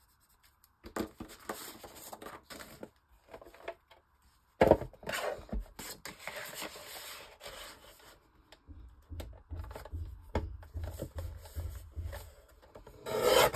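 Paper being handled and cut, with rubbing and scraping and a sharp knock about four and a half seconds in. Near the end comes a run of low, dull thuds: distant banging from building work in a garage.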